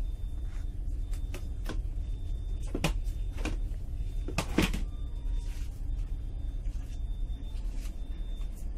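Steady low rumble inside an Indian Railways Duronto Express coach. A handful of sharp knocks come in the first half, the loudest about four and a half seconds in.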